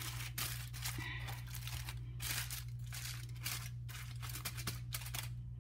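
Aluminium foil crinkling and rustling in a string of short, irregular crackles as hands fold and crimp it shut around a pan of ribs. A steady low hum runs underneath.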